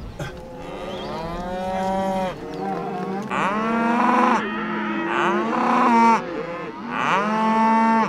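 Beef cattle, black white-faced cows, mooing: about four long calls in a row, some overlapping, from more than one animal.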